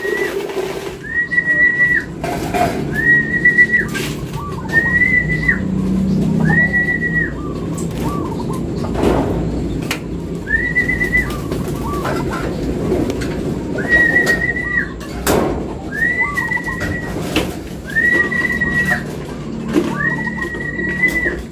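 A person whistling a short flat note again and again, about ten times with a pause in the middle, each note just under a second: a feeding call to racing pigeons. Pigeons coo low underneath.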